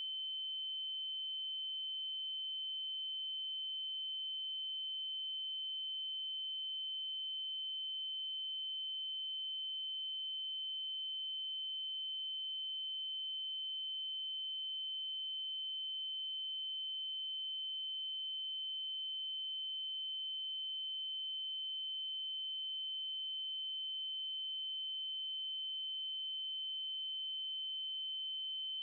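Steady 3072 Hz triangle-wave tone, one high electronic pitch held without change.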